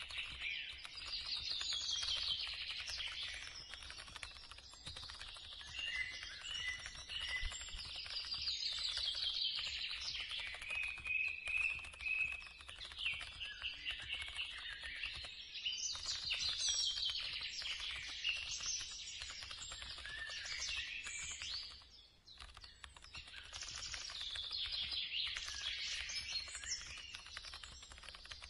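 Birds singing: rapid high chirps and trills in repeated phrases every few seconds, over a faint low hum.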